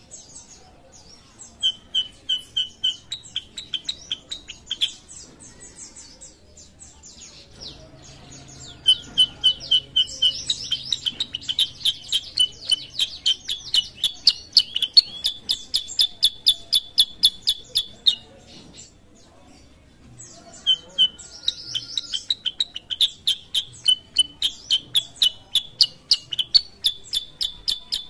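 Kutilang sutra (black-headed bulbul) singing: long runs of rapid, sharp repeated chirps, about five a second, with short pauses between the runs.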